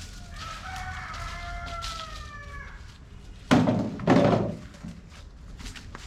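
A rooster crows once, a long call of about two seconds. About a second later come two heavy thuds, half a second apart, the loudest sounds here.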